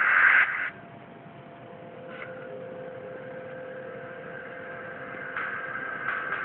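Audio of a video playing through laptop speakers: a loud noisy burst in the first second, then a quieter steady hum with a few held tones.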